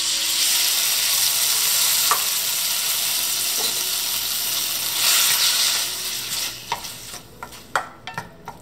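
Diced pineapple sizzling in hot ghee in a stainless-steel kadhai. The sizzle swells about five seconds in, then dies down. Near the end a wooden spatula stirs the pieces, with short taps and scrapes against the pan.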